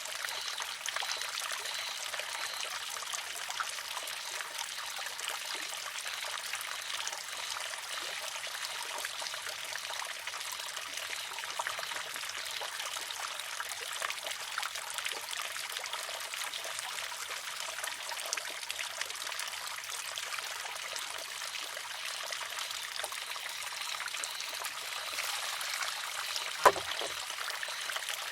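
Water trickling steadily into and out of a wooden shishi-odoshi (deer-scarer). Near the end comes one sharp clack, the loudest sound, as the filled arm tips over and knocks against the rock.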